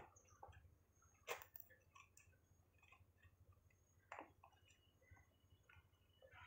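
Scissors snipping into a small cardboard box, faint: a sharp snip about a second in and another about four seconds in, with a few quieter cuts between.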